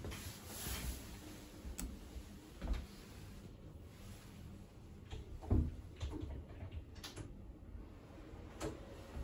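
Faint scattered knocks and clicks over a low hum in a small room, the loudest about halfway through.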